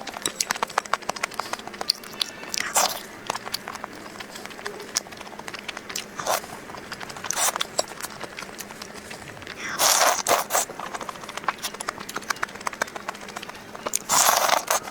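Close-miked eating of crispy food: a steady run of small crackling crunch clicks while chewing, with about five louder, longer crunching bursts.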